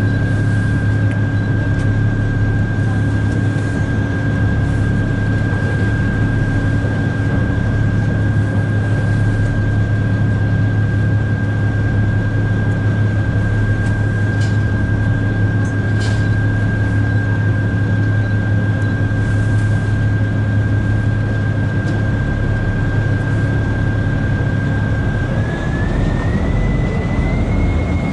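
Tour boat's engines running, a steady low drone with a steady high whine above it; near the end the whine rises in pitch.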